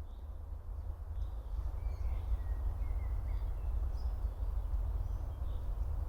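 Wild songbirds calling with short, faint chirps and whistles, several of them between about one and six seconds in, over a steady low rumble.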